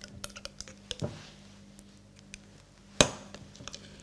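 A spoon clicking and scraping against a jar as solid ghee is scooped out, a few light taps, then one sharp knock about three seconds in.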